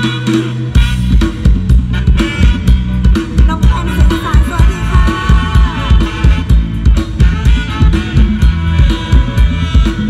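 Live Isan stage-show band music, a drum kit keeping a steady beat of about two pulses a second. A lead melody bends up and down in pitch from about four to six seconds in.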